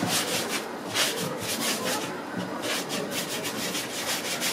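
Hands rolling pieces of dough on a flour-dusted worktop: quick swishing rubs in runs of several strokes a second, with a short pause partway through.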